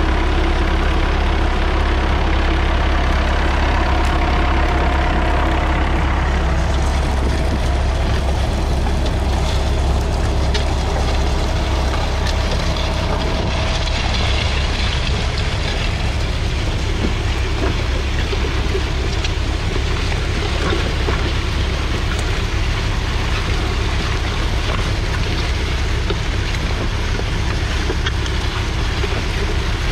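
Massey Ferguson 65's 3.3-litre four-cylinder diesel tractor engine running steadily with a deep, even rumble.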